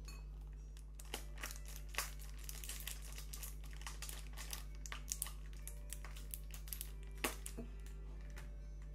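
Plastic squeeze tubes of condiment crinkling and clicking as they are squeezed and handled. Irregular light crackles and taps, with sharper knocks about two seconds in and about seven seconds in, over a steady low hum.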